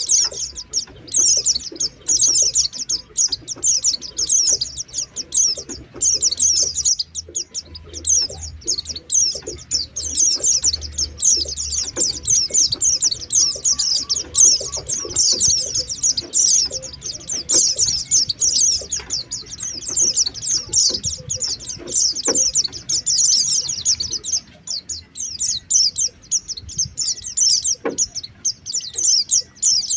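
Pleci (white-eye) birds twittering: a dense, fast stream of high chirps with only brief gaps. This is a lure call, played to draw white-eyes down.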